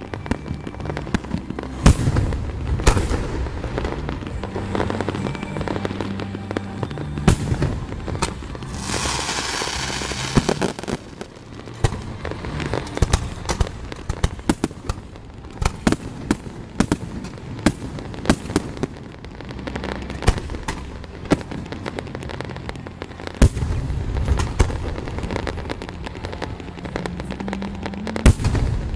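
Aerial fireworks going off: a rapid run of sharp bangs of varying loudness, with a dense crackling hiss for a second or two about nine seconds in.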